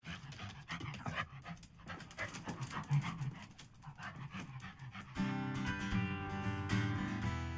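A dog panting in quick, irregular breaths, then guitar music starts about five seconds in.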